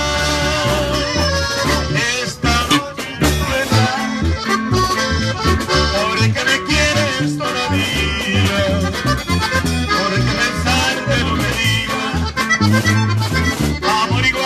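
Live norteño-style band playing an instrumental passage: accordion leads the melody over strummed acoustic guitar and electric bass, with no singing.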